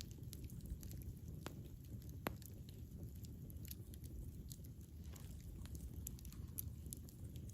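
Campfire burning: a steady low rumble of flames with scattered sharp crackles and pops from the burning wood, one louder pop a little past two seconds in.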